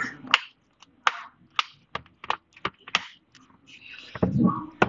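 Sharp plastic clicks, about a dozen at irregular intervals, as the housing clips of a Samsung Galaxy Tab A 10.5 (SM-T590) snap into place while its edge is pressed shut by hand, with a duller handling thump near the end.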